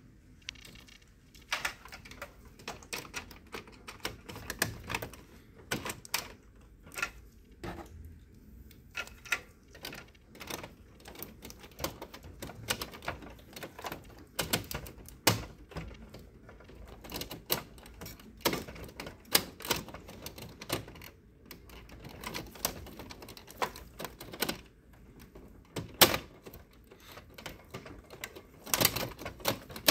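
Plastic roller and separation pad parts being handled and pressed into place in an HP LaserJet M751's paper feed area: irregular clicks, taps and knocks of plastic on plastic, with a louder knock about 26 seconds in and a cluster of clicks near the end.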